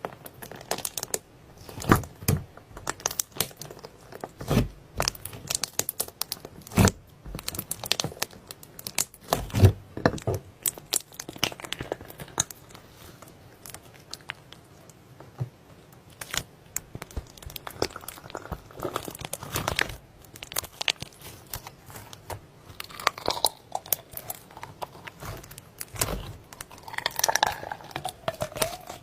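Slime being squished, stretched and poked by hand, giving a stream of irregular sticky clicks, pops and crackles.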